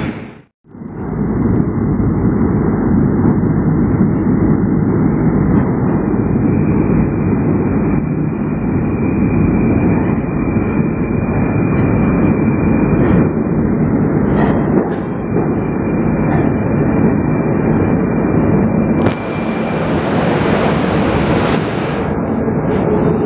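Moscow metro train running along a station platform: a loud, steady rumble, with a higher hiss joining for about three seconds near the end.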